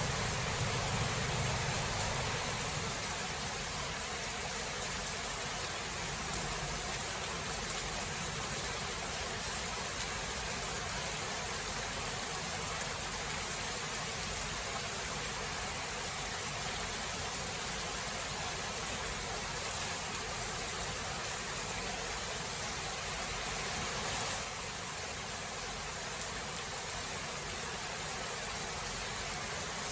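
Steady rain falling as an even hiss, with the tail of a low thunder rumble dying away in the first couple of seconds.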